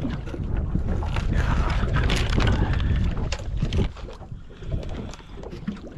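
Wind buffeting the microphone, with rustling and clicking from bait and fishing tackle being handled. The wind eases about four seconds in.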